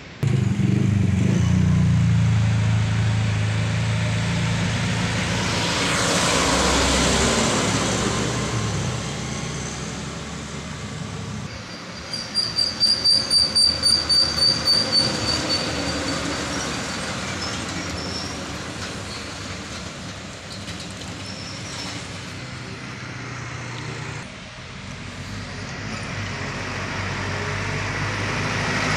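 Trucks driving past on a winding hill road, their diesel engines loud on a close pass right at the start and again near the end. About twelve seconds in, a vehicle horn gives a rapid run of about ten high toots.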